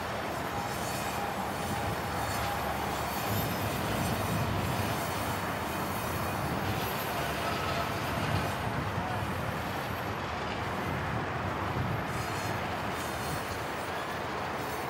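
Wheels of a heavy 36-axle Schnabel rail car rolling past on the track: a steady rumble of many wheel sets on rail, with a faint thin wheel squeal.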